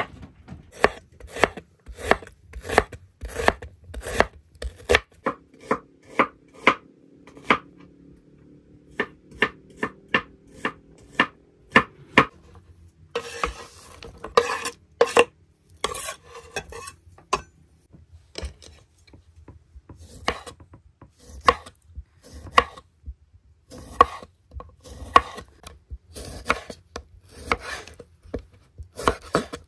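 Kitchen knife chopping on a wooden cutting board: a run of sharp knocks, about two a second. About halfway through comes a stretch of scraping as the sliced onion is pushed off the board into a metal pan, and near the end the knife slices kiwi on the board.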